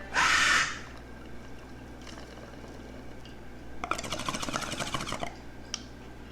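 A short loud hiss near the start, then water bubbling rapidly through a bong for about a second and a half.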